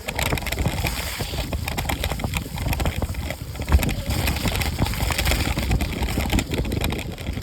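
Wind buffeting the microphone while riding: an uneven low rumble with irregular knocks and a steady noisy hiss.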